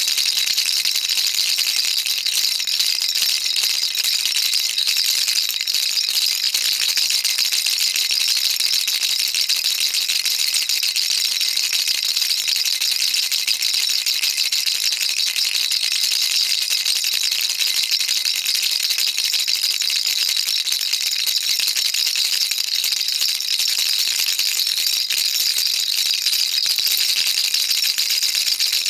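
Baby rattle shaken without pause: a dense, steady, high-pitched rattle.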